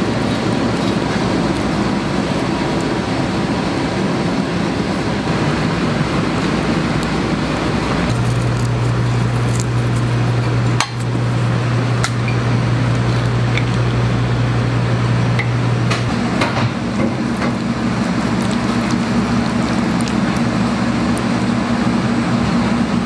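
Tongs and utensils clinking a few times against plates while pasta is plated, over a loud, steady kitchen hum whose pitch steps up about two thirds of the way through.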